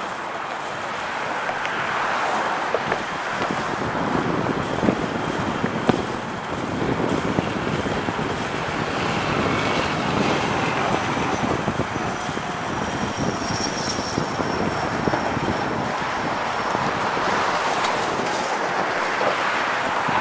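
Steady rush of road and wind noise from travelling in a moving vehicle at speed, with traffic around. A faint high whine comes in about halfway through and fades a few seconds later.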